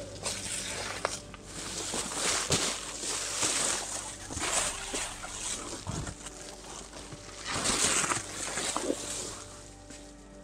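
Tent nylon and a foil-faced sleeping mat rustling and crinkling as they are handled, in several bursts, the loudest about eight seconds in.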